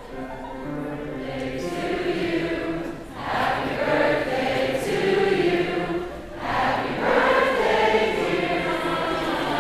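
Choir singing together, swelling in loudness over the first seconds, with two brief breaks between phrases.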